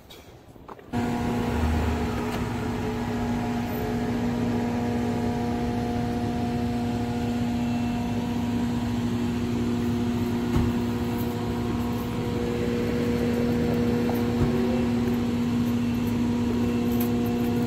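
A steady machine hum at one unchanging pitch, starting abruptly about a second in and holding level.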